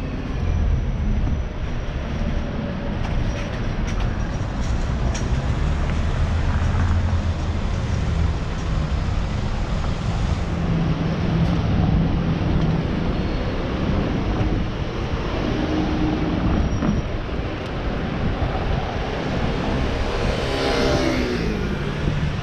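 Street traffic: a steady rumble of passing cars and engines, with one vehicle passing close near the end, its pitch sweeping as it goes by.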